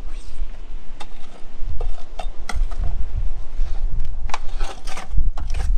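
A hand trowel scraping and knocking against the inside of a black plastic mixing bucket as wet cement-based repair mortar is worked out of it. The sound is a run of irregular scrapes and clicks that grow busier near the end.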